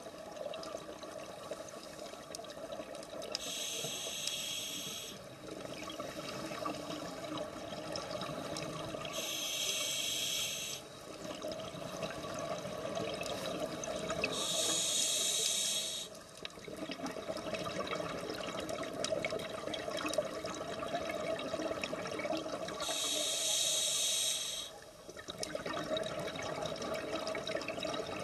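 Scuba diver breathing through a regulator underwater: four bubbly exhalations, each about two seconds long and several seconds apart, over a steady low rushing.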